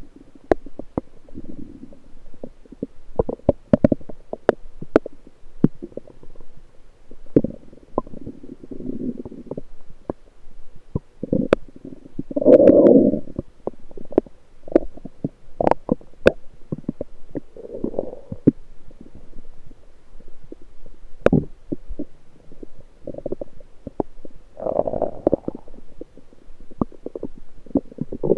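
Lower intestines gurgling, heard close up through a USB electronic stethoscope: irregular bubbling gurgles with many short sharp clicks and pops between them. The longest and loudest gurgle comes about twelve seconds in.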